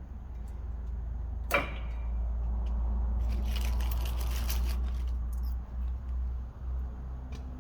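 Metal brake pad retaining clips being snapped and worked into a disc brake caliper bracket: one sharp click about a second and a half in, then a few seconds of scraping and rustling as the clips are pressed into place, over a steady low rumble.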